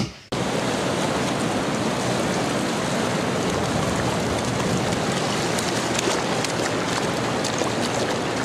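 A brief knock at the start, then a steady rushing noise of ocean surf breaking in the shallows.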